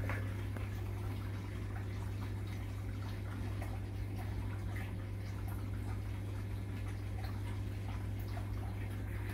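A steady low hum with faint scattered drips and ticks, after the flow of recirculating wort has stopped.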